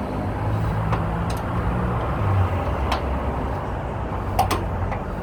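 Low, steady running of a motor vehicle's engine, its pitch shifting about two seconds in, with a few light clicks over it.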